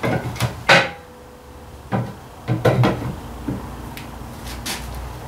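Irregular metal clunks and knocks as heavy brake parts on a Ford 2N tractor's upright axle and brake backing plate are worked and shifted by hand; the sharpest knock comes less than a second in.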